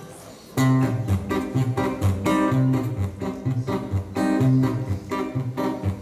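Acoustic guitar strummed in a steady rhythm, starting about half a second in: the instrumental intro of a song before the singing begins.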